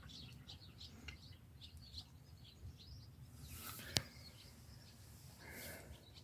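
Faint rumble of an Indesit EcoTime washing machine mid-wash on a delicates cycle, with a run of faint high chirps over the first few seconds and a single sharp click about four seconds in.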